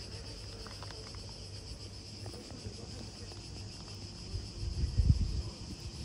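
Insects outdoors making a steady, unbroken high-pitched buzz. A short low rumble swells up about five seconds in.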